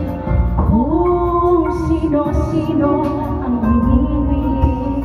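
Two women singing karaoke into handheld microphones over a recorded backing track, their voices rising into long held notes.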